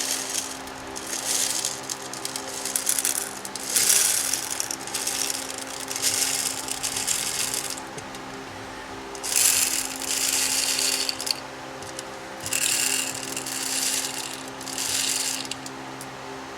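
Number 4 birdshot being poured in a dozen or so short bursts through a makeshift can funnel into the hollow plastic cavities of a synthetic rifle stock. The pellets rattle and hiss down into the stock.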